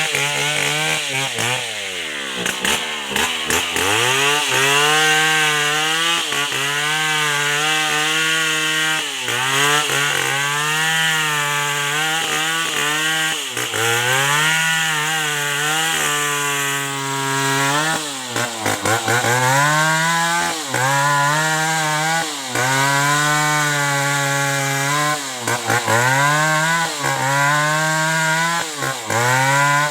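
Large 070-model two-stroke chainsaw cutting through durian wood. The engine pitch sags under load and picks back up again and again, with one deep bog a few seconds in.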